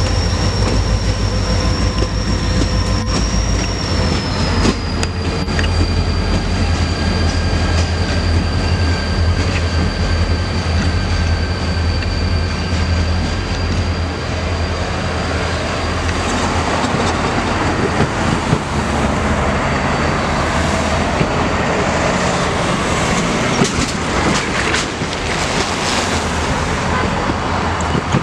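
A train rolling past with a strong low rumble and a thin, steady high whine that drops a little in pitch about four seconds in. From about halfway the sound turns rougher and louder, with clatter and clicks from the wheels on the rails.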